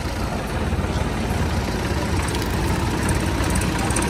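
Diesel farm tractor engines running at low revs close by, a steady low throb.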